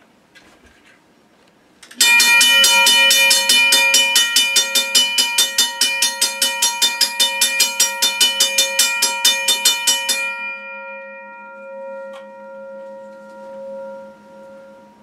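A Safetran 12- to 13-inch mechanical railroad crossing bell starts striking about two seconds in, fast and steady at about five strokes a second. About ten seconds in the striking stops and the gong keeps ringing, slowly fading.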